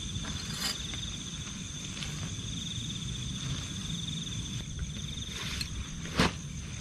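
Insects trilling in a steady, high, pulsing chorus over a low rumble, with one sharp click about six seconds in.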